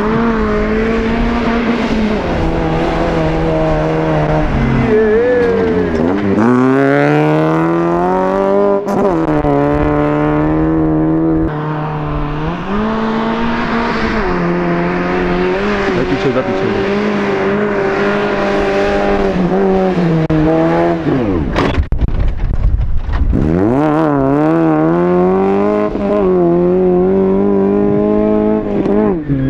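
Off-road SUV engine running hard through loose sand, held at high revs for stretches and changing pitch in steps. Twice the revs fall away sharply and then climb again.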